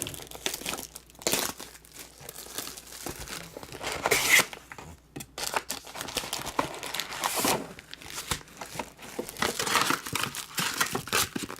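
Plastic wrapping crinkling and tearing as sealed trading-card boxes and packs are opened, in irregular rustles with louder tears about four and seven and a half seconds in.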